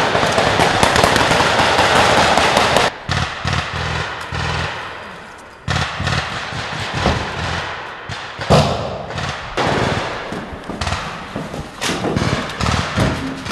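Gunfire from military rifles: scattered shots and thuds across several edited shots, with a loud continuous rushing noise over about the first three seconds that cuts off abruptly.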